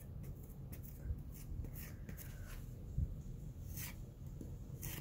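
Putty knife scraping and smearing putty over a door frame, a string of short scrapes, with a dull thump about three seconds in.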